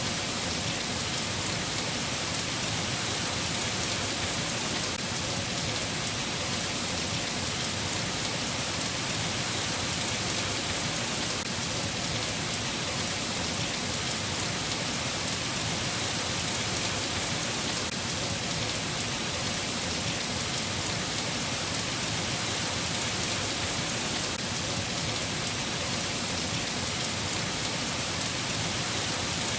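Steady rain falling, an even hiss without changes or thunderclaps.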